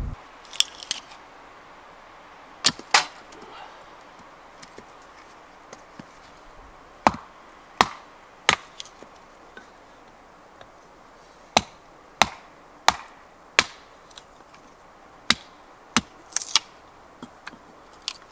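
Small wooden-handled axe splitting firewood into kindling on a log: a series of sharp chops, mostly about two-thirds of a second apart, with a pause of about four seconds after the first few strikes.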